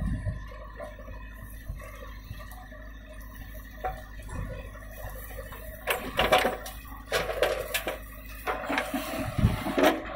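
JCB 3DX backhoe loader's diesel engine running steadily. From about six seconds in, soil and clods pour out of the backhoe bucket into a steel tractor trolley, clattering and rattling in three bursts.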